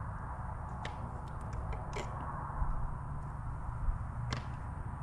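A few light clicks and taps of a metal spoon against a glass jar as minced garlic is scooped out and spread onto fish fillets, over a steady low hum.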